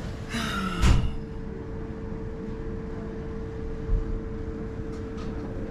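A steady machinery hum holding one even tone over a low rumble. A brief thump about a second in and another near four seconds.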